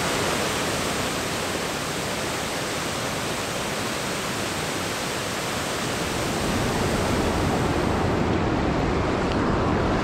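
A large waterfall, rushing steadily and loudly as it plunges into a pool. The rush turns a little fuller and deeper in the second half.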